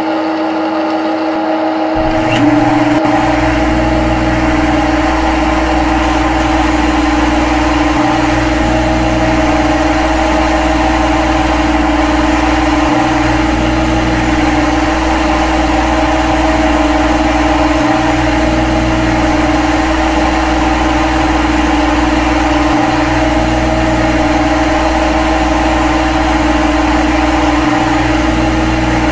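CNC lathe simulator's machining sound: a steady machine hum that grows deeper and slightly louder about two seconds in as the simulated spindle starts and the tool begins cutting. It then runs on evenly, with a brief dip in the low rumble about every five seconds.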